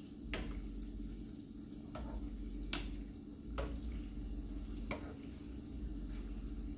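Yeast doughnuts frying in hot oil with a low sizzle, while a metal spoon ladles oil over them and clinks against the pot about five times. A steady low hum runs underneath.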